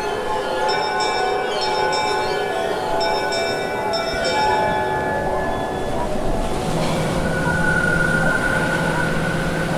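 Ambient soundtrack of ringing, bell-like struck tones that overlap and sustain, with a new strike every second or so. About six seconds in it gives way to a rushing noise over a steady low hum.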